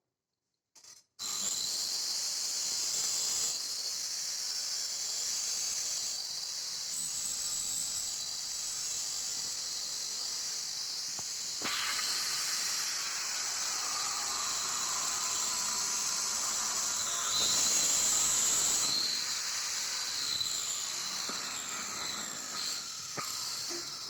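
Steady, loud hiss that starts abruptly about a second in, swells slightly in the middle and fades away near the end.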